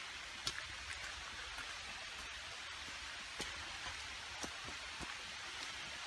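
Footsteps on a dirt and gravel forest trail, a few light crunches and ticks at uneven intervals, over a steady hiss.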